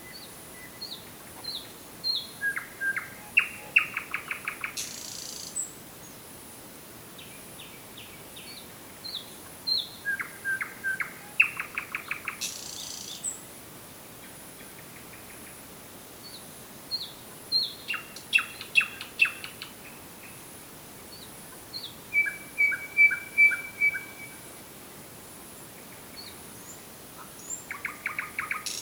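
A nightingale singing in separate phrases a few seconds apart, five in all. Each phrase opens with soft high piping notes, runs into fast repeated clicking strokes and trills, and most end in a short harsh rattle.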